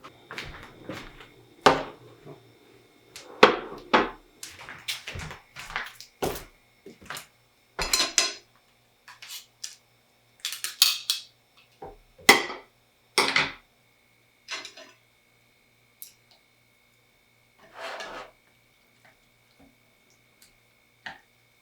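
Eating utensils clinking and scraping against a ramen bowl in an irregular run of knocks, thinning out to a few scattered clinks after about fourteen seconds.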